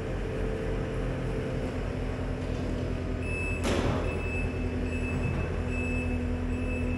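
Skid steer loader's engine running steadily as it moves the garden tractor onto the shop floor. A little past halfway there is a short loud hiss, and from then on a high reverse alarm beeps intermittently as the loader backs away.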